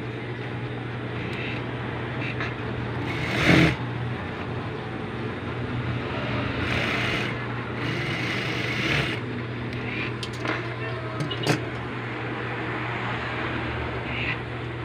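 Juki industrial sewing machine stitching in a few short runs, the loudest about three and a half seconds in, over a steady low hum. Between runs there is the rustle of the cotton twill being shifted under the presser foot, and a couple of sharp clicks near the end.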